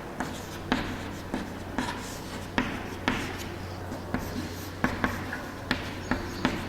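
Writing on a classroom board: a run of short taps and scrapes, about two a second, as words are written out.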